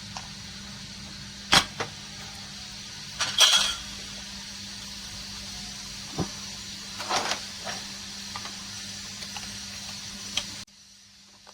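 A series of sharp clicks and knocks, the loudest two early on, over a steady hum and hiss that cuts off suddenly near the end. These are the handling sounds of printer parts being taken apart.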